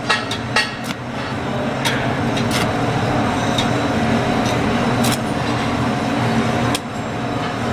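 Stick (shielded metal arc) welding arc crackling and sizzling steadily, with sharp pops now and then, over a steady low hum.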